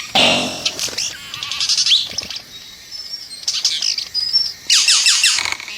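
Male Vogelkop bowerbird singing his courtship song to a female: a varied run of harsh notes, clicks and whistles, with a burst of quick falling notes near the end.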